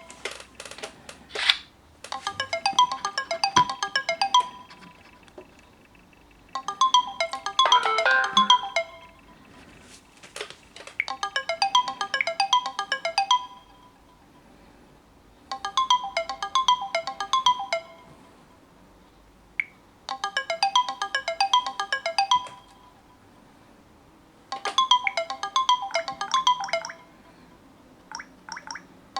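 Android smartphone ringtones: a melodic electronic tone plays in bursts of about two and a half seconds, repeating every four to five seconds, with fainter chimes from another tone sounding in some of the pauses.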